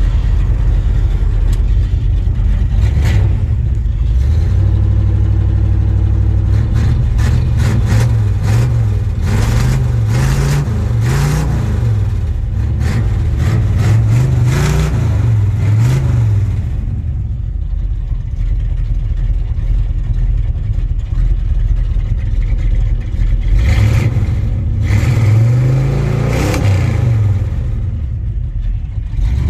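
1978 Chevrolet farm truck's engine running, heard from inside the cab. It is revved up and down in a run of quick blips, settles to a steady idle for several seconds, then is blipped a few more times near the end.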